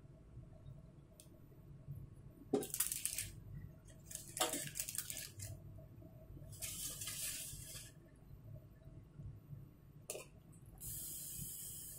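A metal pot of instant noodle soup boiling on a gas stove: steady bubbling, with a couple of sharp metal clinks about two and a half and four and a half seconds in, and bursts of hissing around seven seconds and again near the end.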